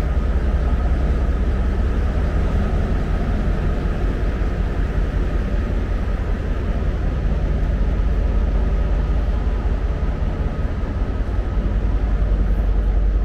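Loud, steady diesel drone of a train standing at the platform, from its power van's generator running and its diesel locomotive idling. It is a deep, even hum with a thin steady tone above it.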